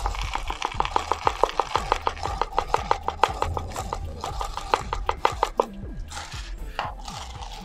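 A small plastic jar of white topping rattled and worked in the hands: a rapid even run of clicks, about six a second, that stops about two seconds before the end.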